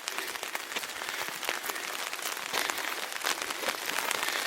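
Pouring rain pattering on an umbrella overhead: a dense, steady crackle of drops.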